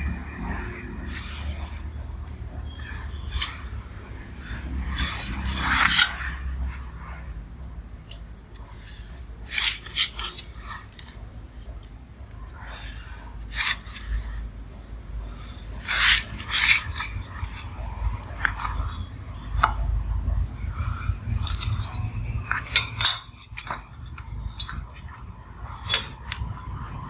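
A pen scratching short ruled lines on paper, with the steel square and steel ruler scraping and clinking as they are slid and set down between strokes. A steady low rumble runs underneath.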